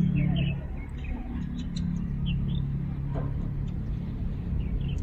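A steady low mechanical hum, like a motor running, with a few faint high chirps over it.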